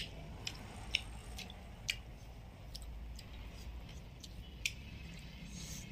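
Eating by hand: fingers squishing and mixing rice on a plate, with sharp little clicks at irregular intervals, about two a second at first, then sparser.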